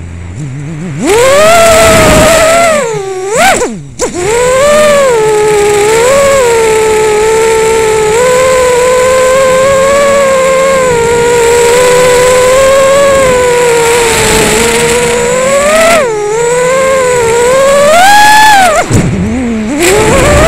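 FPV racing quadcopter's brushless motors whining, the pitch rising and falling with the throttle. It drops away and surges back several times as the throttle is cut and punched, and holds a steadier whine through the middle.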